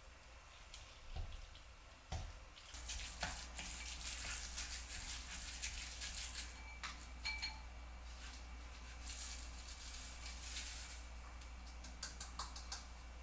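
Water running from a kitchen tap into a sink, turned on about two seconds in after a couple of light clicks, with faint clinks of dishes.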